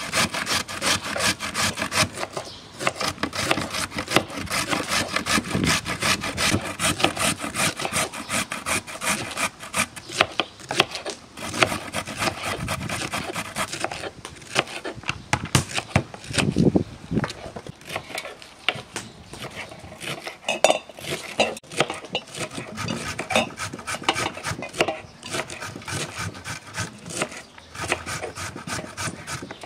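Carrot being grated on a metal box grater and cabbage being sliced with a knife on a wooden cutting board: rapid, repeated scraping strokes, many a second.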